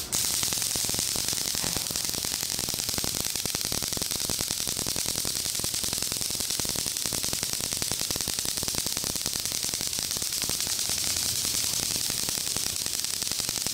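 Steady high-pitched hiss with a fast, fine crackling texture and no distinct events.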